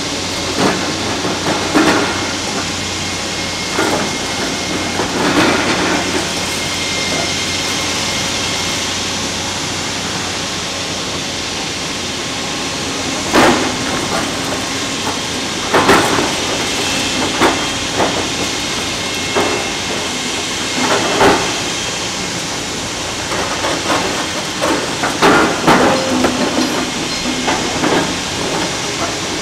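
Hitachi Zaxis 490 excavator running steadily under a constant hiss while breaking up concrete, with irregular knocks and crunches of concrete. The sharpest strikes come about halfway through and in a cluster near the end.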